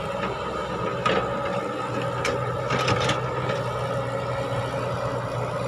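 Caterpillar hydraulic excavator's diesel engine running steadily under digging load, with a few sharp metallic knocks and clanks from the working bucket and boom in the first half.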